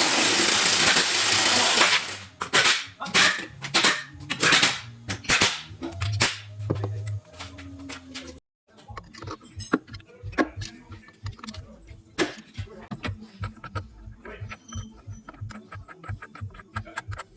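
Workshop tool noise: a loud hissing burst about two seconds long, then a run of sharp knocks. After a short break comes a long stretch of quick, fainter clicks.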